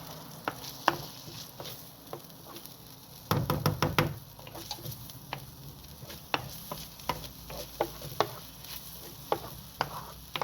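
Onions sizzling in a frying pan, with scattered pops and crackles. About three and a half seconds in, a quick run of louder knocks as the onions are stirred against the pan.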